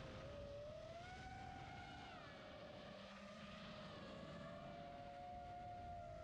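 Whine of a 5-inch FPV quadcopter's F40 1950 kv brushless motors and propellers, faint, its pitch rising and falling with the throttle: up about a second in, down around two seconds, and up again after four.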